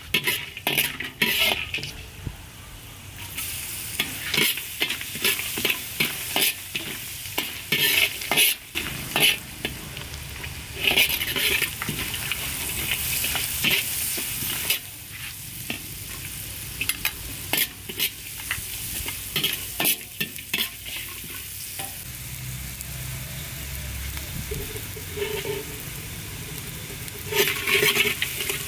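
Spices, dried chilies and lemongrass sizzling in hot oil in a stainless steel wok while a metal ladle stirs them, scraping and clinking against the wok. The sizzle swells louder in patches, including about halfway through and again near the end.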